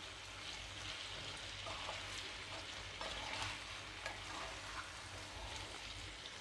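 Sliced pumpkin sizzling faintly in oil in a black-coated kadhai, with a spatula stirring through it and giving a few light scrapes.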